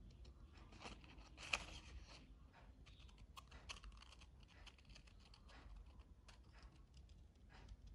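Scissors snipping through paper, a quiet run of short, irregular cuts, the sharpest snip about one and a half seconds in.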